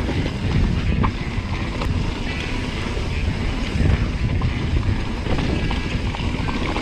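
Wind buffeting the microphone and mountain bike tyres rumbling over a dirt singletrack on a fast descent, with scattered clicks and rattles from the bike.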